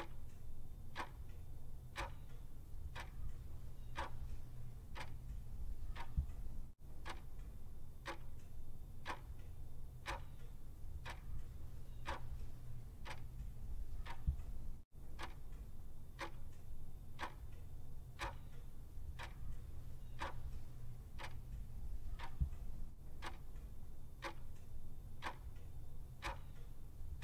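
Clock-ticking sound effect for a countdown timer: faint, even ticks about two a second, over a low steady hum.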